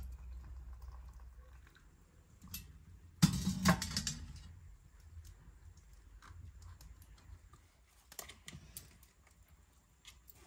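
Clatter and light clicking taps as a kettle and teapots are handled and set down on a wooden board by a wood fire, with one loud clattering knock about three seconds in and a few scattered clicks near the end.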